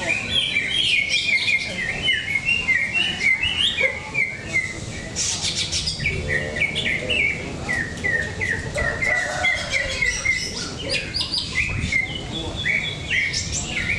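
Several caged green leafbirds (cucak ijo) singing against one another: a dense, unbroken run of quick, high chirps and warbles.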